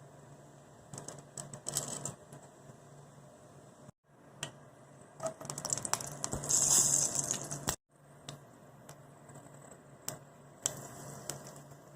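Scattered clicks and knocks of objects being handled, with a loud hissing burst lasting about two seconds in the middle.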